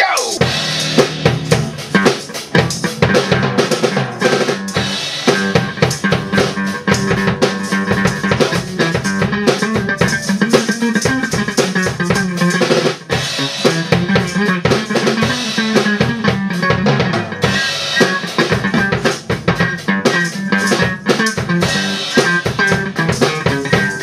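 Amateur rock band jamming loudly: a Pearl drum kit played in a fast, busy rhythm together with an electric guitar.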